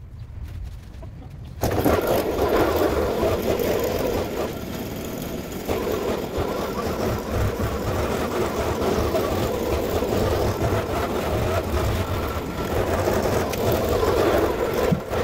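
Stihl FS 220 two-stroke brushcutter running steadily, coming in suddenly about a second and a half in after a quieter stretch.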